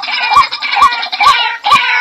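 Background music with a steady beat, a little over two beats a second, each beat carrying a short rising-and-falling note over a dense high chatter.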